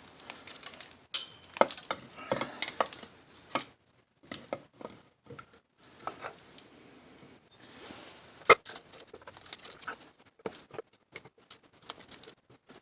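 Metal engine side cover of a Yamaha TW200 being handled and pushed onto the engine case: irregular clicks, scrapes and light knocks of metal on metal, with one sharp knock about eight and a half seconds in. The cover is not seating and is hanging up on something.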